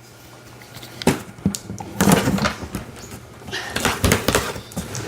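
A box and its packaging being opened and handled, with a run of knocks, thumps and rustling that is busiest around the middle and again near the end.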